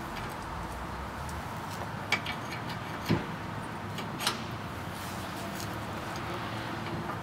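Hand tools working on a Jeep Wrangler shock mount: a few sharp metallic clicks and knocks about a second apart, the loudest three roughly two to four and a half seconds in, with fainter ticks around them over a steady background hiss.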